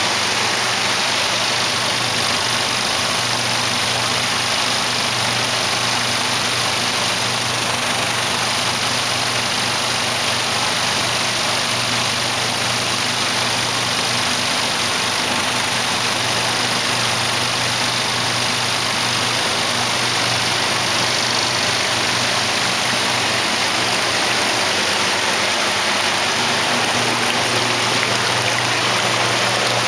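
Water rushing and churning steadily through a Tri-Pax flume washer carrying baby leaf spinach, over a steady low machine hum.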